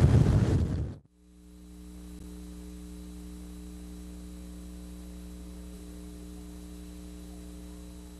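Wind buffeting the camcorder microphone for about a second, cut off abruptly. A steady low electrical mains hum follows for the rest.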